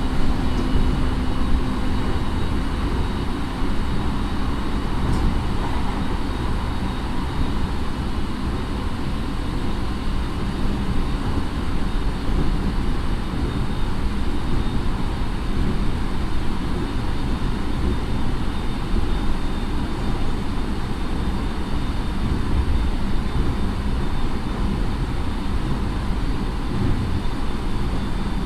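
Inside a JR 209 series electric train motor car (Mitsubishi IGBT drive, MT68 traction motors) running steadily: continuous wheel and track rumble with a faint steady high tone, heard inside the car.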